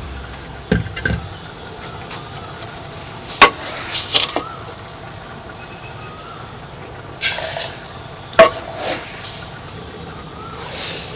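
Food sizzling in a pan under a steady low hiss, with intermittent scrapes and knocks of a utensil stirring against the pot.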